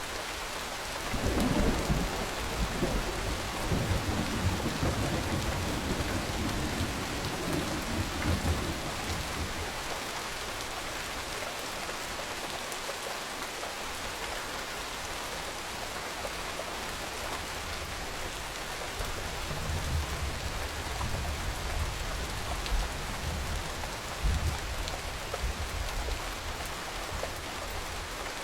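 Steady rain falling, with rolls of low thunder rumbling twice: one starting about a second in and lasting several seconds, another starting past the middle.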